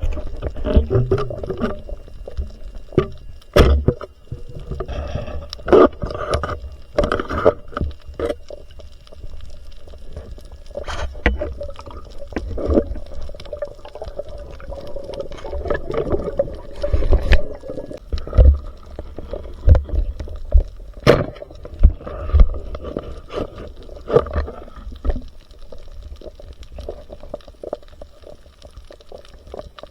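Water sloshing and gurgling around the microphone, with many irregular knocks and bumps.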